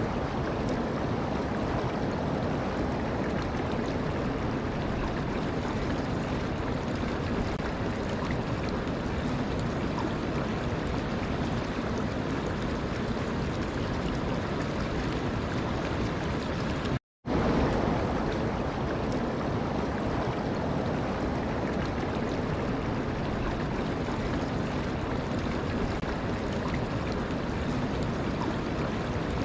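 Steady rushing of running water, an even wash of noise with no tune or voice. It cuts out completely for an instant about seventeen seconds in, then resumes.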